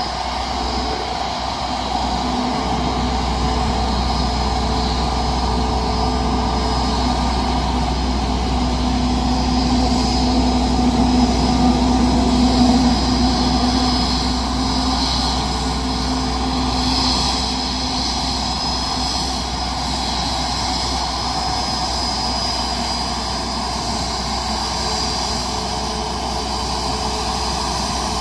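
Airbus A321neo's twin jet engines at taxi idle as the airliner rolls slowly in, a steady whine over a rumble that swells slightly a little before halfway.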